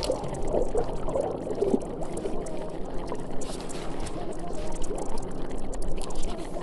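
Continuous rushing, splashing water sound with no breaks.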